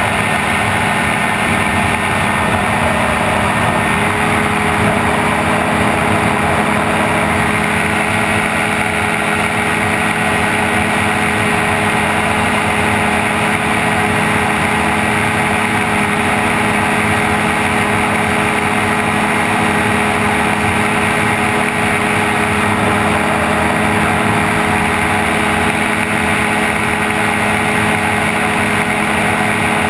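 Gyrocopter engine and pusher propeller running steadily in cruise flight, with a constant rush of airstream noise over the open cockpit.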